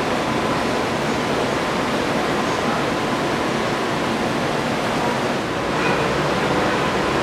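Steady rushing air noise of the exhibit car's ventilation system, with a faint steady high hum.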